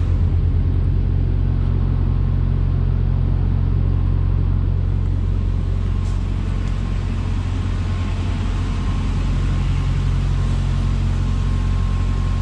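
Heavy diesel engine of a Freightliner Classic XL semi-truck idling steadily with its hood tilted open, a deep even rumble.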